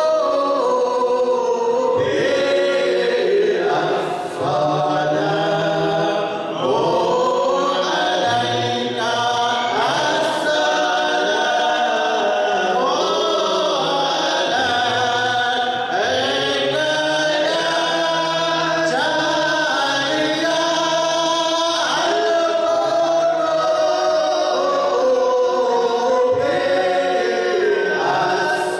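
Group of men chanting dhikr together in unison, a continuous sung devotional chant amplified through microphones.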